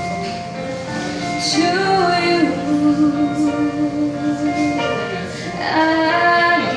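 Live music: a woman singing long held notes over an instrumental accompaniment, with the notes sliding in pitch between phrases.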